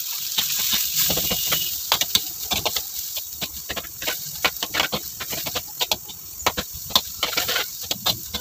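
A perforated metal ladle scraping and clinking repeatedly against a hammered metal kadai as chopped onions, ginger and garlic are stirred and sautéed in butter, over a steady sizzle.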